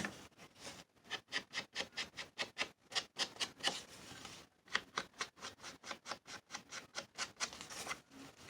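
Scissors snipping paper in a rapid run of short, crisp clicks, about five a second with a few brief pauses, as the corners of a paper piece are trimmed.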